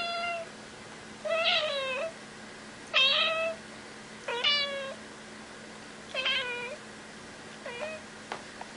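A cat meowing again and again: six meows about a second and a half apart, the last one fainter.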